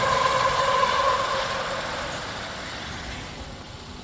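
Tesla Semi electric truck pulling away at low speed: a steady high whine over tyre and running noise, fading as the truck moves off.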